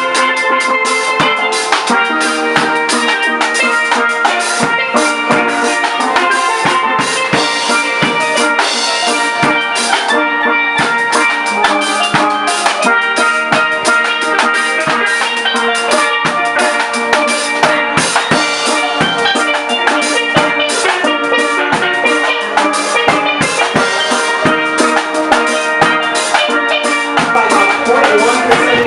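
Steel drum music with a drum kit beat, playing steadily and loudly.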